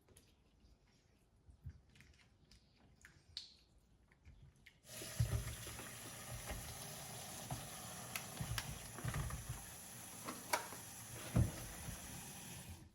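Faint small clicks of handling, then about five seconds in a kitchen tap turns on and water runs steadily into the sink, with a few knocks against the sink. The water shuts off suddenly near the end.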